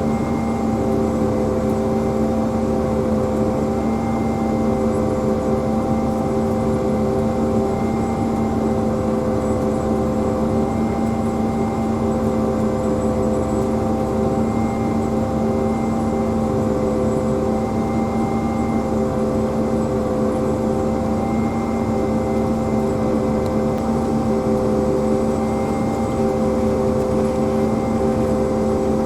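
Pea viner running steadily at work: an even, loud mechanical drone with a steady hum that holds the same pitch throughout.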